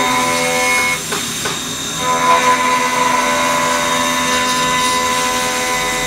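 Five-axis CNC mill's spindle running a cutter that is porting a Suzuki Hayabusa cylinder head, with flood coolant spraying: a steady machine whine of several tones over a hiss, which briefly dips about a second in.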